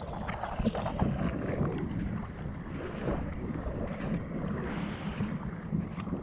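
Seawater sloshing and splashing right at the microphone, which sits at water level, with a few sharp splashes in the first second, then gentler lapping mixed with wind noise.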